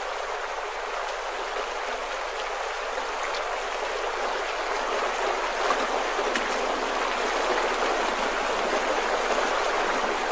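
Shallow stream running over stones: a steady rush of water that grows slightly louder as it goes on.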